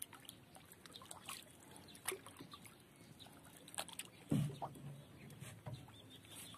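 Faint water lapping around a small wooden boat with scattered small clicks and knocks, and a short low pitched sound about four and a half seconds in.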